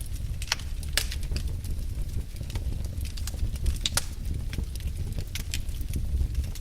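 Fire burning in a fireplace: a steady low rumble with irregular sharp crackles and pops. The loudest pops come about half a second, a second and four seconds in.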